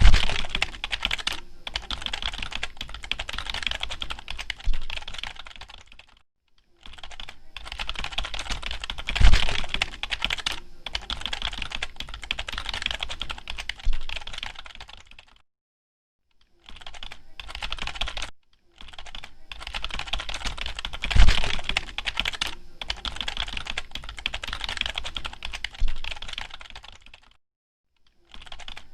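Typing on a computer keyboard: fast, continuous key clicks in runs broken by four short pauses, with a few heavier key strikes standing out.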